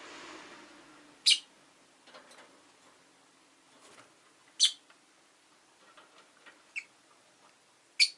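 Rosy-faced lovebird giving short, sharp high-pitched chirps, three times about three and a half seconds apart, with faint small clicks in between. A soft rush of background noise fades out during the first second.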